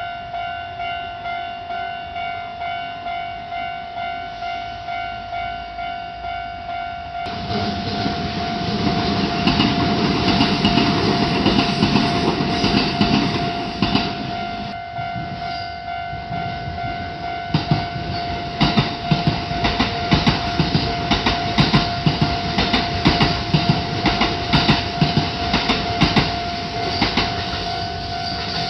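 Level-crossing warning bell ringing a steady repeated ding, about two a second, throughout. About seven seconds in a train passes over the crossing with loud rail noise, and in the second half its wheels clack in a steady rhythm over the rail joints.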